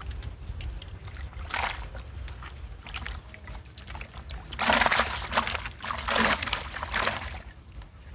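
Water splashing at a pond's surface as a long bamboo fishing pole is cast and its line worked in the water. A short splash comes about a second and a half in, then a louder run of splashes lasting a couple of seconds past the middle.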